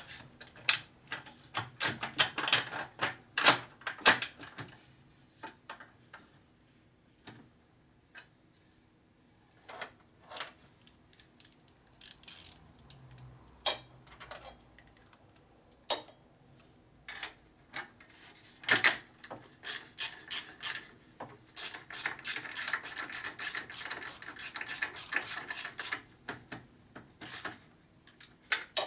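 Hand-tool work on metal parts: scattered clinks and knocks, then runs of quick, even ratchet-wrench clicks, about five a second, in the second half.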